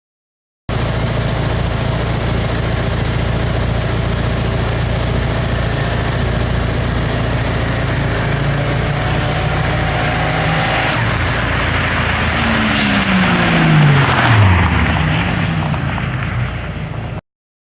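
Mazda RX-7 and turbocharged Pontiac Firebird racing from a dig start, engines pulling hard under acceleration. Near the end the cars pass loudest and their pitch falls as they go by. The sound starts and cuts off abruptly.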